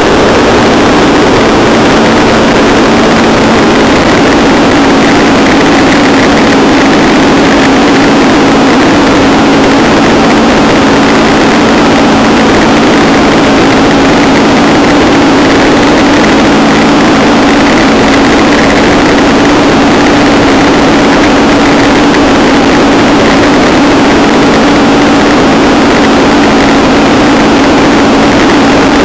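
Paramotor engine and propeller running steadily in flight, a loud unchanging drone at one pitch, mixed with rushing air on the microphone.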